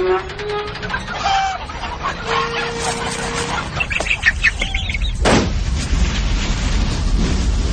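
Crated chickens squawking and clucking, with a sharp thump about five seconds in and a low rumble after it.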